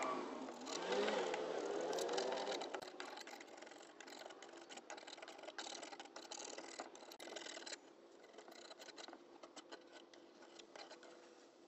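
Metal scraper pushed along a pine dresser top, lifting stripper-softened, bubbled layers of old paint: a run of short crackly scraping clicks over a faint steady hum. A wavering pitched sound, the loudest thing here, fills the first three seconds.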